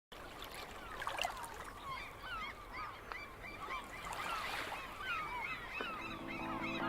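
A chorus of many birds calling, short hooked chirps overlapping several times a second. Music with steady held notes comes in near the end.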